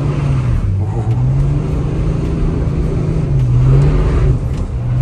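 BMW X3 3.0 diesel straight-six pulling away on the road, heard from inside the cabin through an exhaust split into two tailpipes with its silencer can cut out: a low, deep engine drone whose pitch rises as it pulls, dipping briefly about half a second in and again around three and a half seconds before climbing again.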